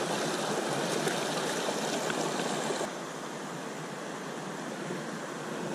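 River water rushing over rocks in a shallow riffle, a steady rush that drops to a quieter level about three seconds in.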